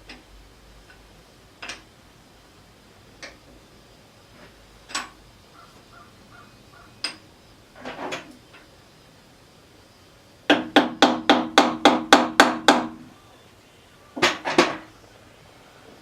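Scattered single metal clinks and knocks, then a fast run of about ten ringing hammer taps on metal, roughly four to five a second, followed by a couple more knocks: a hex key being driven into a paint-caked bolt head on a lathe.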